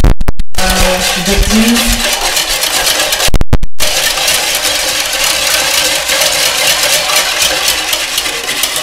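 Wire balloon whisk beating milk and sugar in a plastic bowl: a fast, continuous rattling and swishing of the wires through the liquid and against the bowl's sides as the sugar is mixed in to dissolve.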